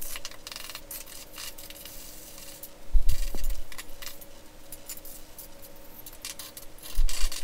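Hand trowel scraping and smoothing damp sand-and-Portland-cement deck mud in short gritty strokes, with two dull thumps, about three and seven seconds in, as tools are handled.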